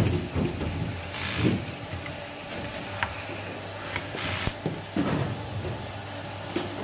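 Cable-handling noises at a workbench: rubber-sheathed cables rustling and scraping as they are pulled from a pile, with scattered clicks of hand tools such as wire strippers, over a steady low hum.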